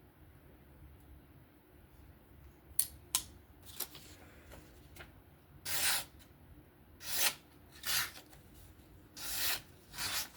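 A freehand-sharpened knife slicing paper in five separate strokes of about half a second each, after a few light clicks of handling. The edge cuts but gets hung up here and there.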